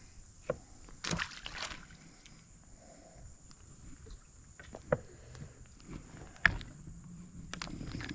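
Scattered small knocks and clicks of fishing gear being handled in a small boat, with a brief rustling splash about a second in and faint water sloshing against the hull.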